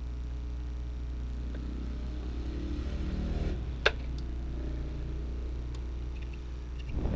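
A single sharp click about four seconds in, with a softer knock near the end, over a steady low hum: printer parts being handled and fitted during reassembly.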